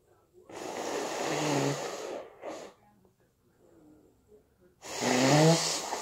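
A person with a stuffy, snotty head cold blowing their nose into a tissue, twice: two long blows about four seconds apart, the second with a rising nasal honk.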